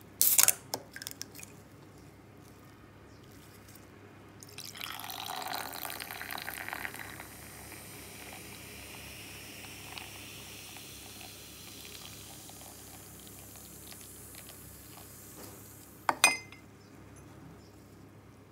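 A can of Red Bull Red Edition (watermelon) opened with a sharp snap of the pull tab, then poured over ice into a glass, the drink fizzing steadily after the pour. A sharp clink near the end.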